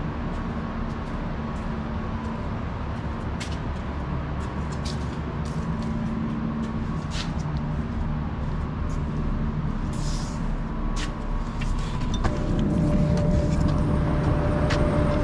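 Diesel garbage truck engines idling: a steady low drone with scattered clicks and ticks. About twelve seconds in a steady higher hum joins and the sound grows a little louder.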